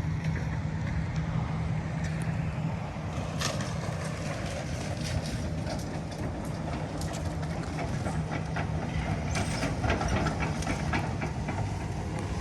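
Demolition machinery knocking down a building: a heavy machine's engine runs with a steady low hum, while from a few seconds in, repeated cracks, crunches and clattering debris break out, heaviest about a third of the way through and again toward the end.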